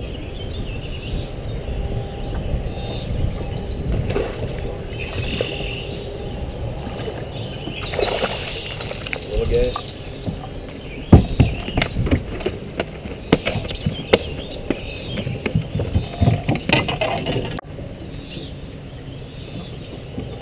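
A hooked bass brought to the side of a bass boat and swung aboard, followed by a run of sharp knocks and thumps on the boat as it is landed and handled, the loudest a little after the middle.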